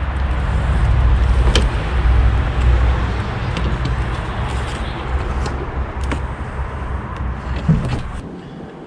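Low engine rumble of a nearby vehicle that swells and then fades out near the end, with a few light clicks over it.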